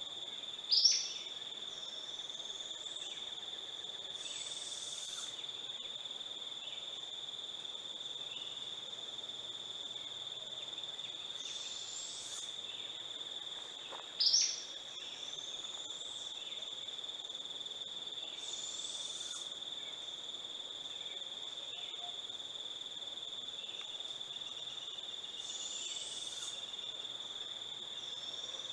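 Young barred owl giving raspy, rising begging hisses about every seven seconds, each lasting a little over a second, over a steady high insect trill. A short, loud, sharp bird call cuts in twice, about a second in and again halfway through.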